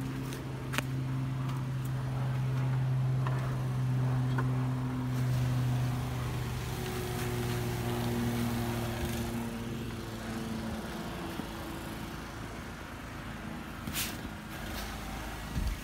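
Engine running, a steady low hum that drifts slightly in pitch and fades out about ten seconds in, followed by a couple of sharp clicks near the end.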